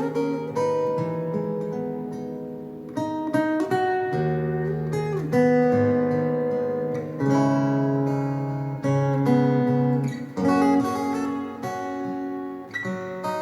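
Acoustic guitar music, plucked and strummed chords with a new chord every second or two, played back through a Sony centre and surround speaker set under test.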